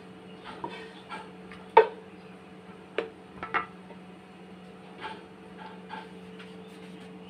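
Spatula scraping and knocking against a cooking pot as cooked rice-flour dough is turned out onto a plate: a series of separate clinks and knocks, the loudest just under two seconds in, over a steady low hum.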